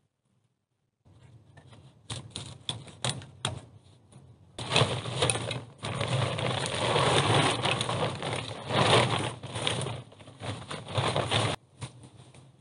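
Plastic tarpaulin crackling and rustling as it is unfolded and spread over a log roof: scattered crackles start about a second in, turn into a dense, loud rustle about five seconds in, and stop sharply near the end.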